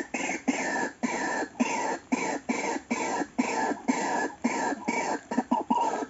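White-breasted waterhen calling: harsh, croaking notes repeated about twice a second, each falling slightly in pitch, coming a little faster near the end.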